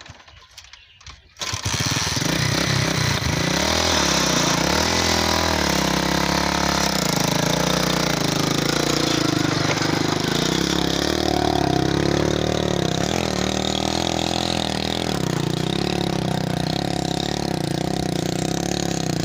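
Small petrol engine of a homemade motorized cart (phatta rehra) starting about a second and a half in, then running steadily with its pitch wavering.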